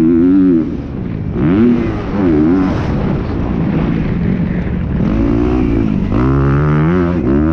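Motocross bike engine revving under load: on the throttle at first, backing off just under a second in, two quick throttle blips, then pulling hard again about six seconds in.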